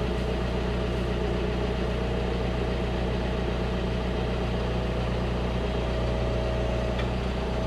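Tractor engine running steadily at an even speed, with a thin steady whine running along with it.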